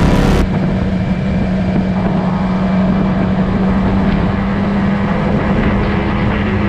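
BMW S1000XR inline-four engine running at a steady speed on the move, under wind and road noise. A broad hiss cuts off about half a second in.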